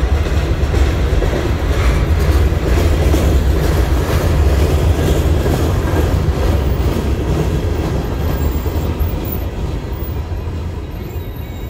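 Empty open-top stone hopper cars of a CSX freight train rolling past on the rails: a steady, loud noise of steel wheels on track that eases off slightly near the end.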